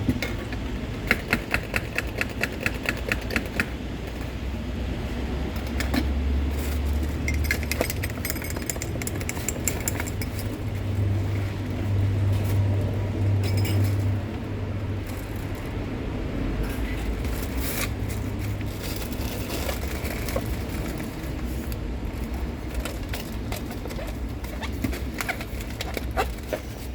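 Clinks and clicks of drink-making at a street stall, starting with a quick run of about a dozen even clicks, about four a second, over a low traffic rumble that swells twice as vehicles pass.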